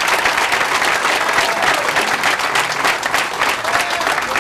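A room full of people applauding, with many hands clapping steadily.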